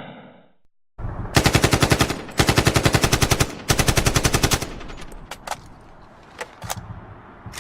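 AK-47 firing on full auto: three bursts of about a second each at roughly ten shots a second, followed by a few separate single shots.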